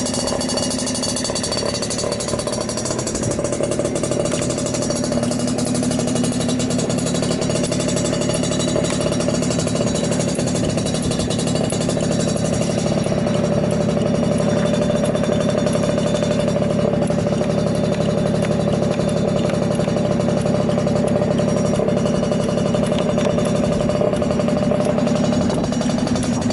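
Suzuki Hi Walter Wolf 50cc two-stroke scooter engine idling steadily through an aftermarket coiled expansion chamber after a cold start, with no abnormal noise.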